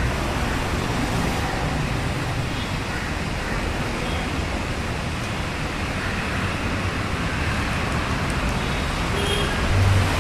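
City street traffic: passing motor vehicles' engines and tyres make a steady rumble and hiss, with a brief louder low tone near the end.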